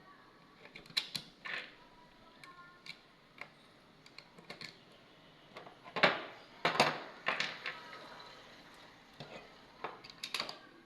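Sharp metallic clicks and clacks of a Beretta 92FS 9mm pistol and its magazine being handled, the loudest pair about six and seven seconds in.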